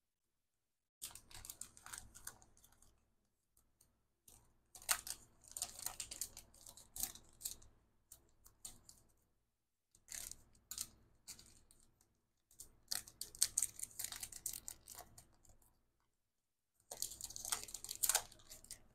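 Sheets of thin scrapbook paper and vellum being handled and shuffled, rustling and crinkling in several short bursts with pauses between.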